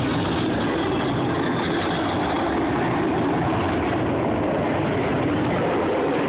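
F-22 Raptor's twin jet engines heard in flight, a steady, loud jet noise.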